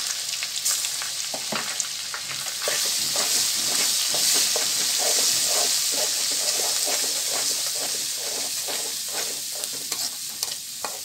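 Ginger-garlic paste sizzling in hot oil in a metal karahi (wok), as a hiss throughout. A metal spoon stirs it, scraping and clinking against the pan many times.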